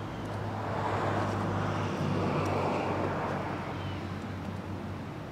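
Two distant Norfolk Southern GE D9-40CW diesel locomotives (16-cylinder engines) approaching at the head of a freight train: a steady low engine drone, with a swell of rushing noise that builds about a second in and fades off about four seconds in.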